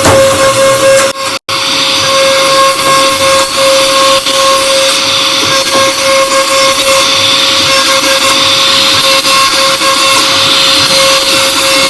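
CNC router spindle running with a steady high whine as the bit cuts into MDF sheet, the sound of the cutting spread over it. It drops out for an instant about a second and a half in.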